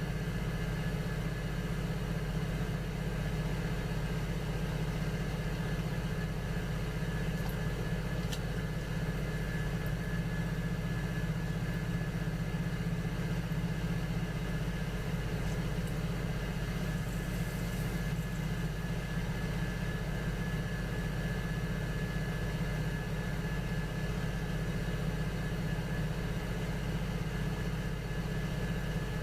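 Electric potter's wheel running steadily, a constant low motor hum with a thin high whine over it and a few faint ticks.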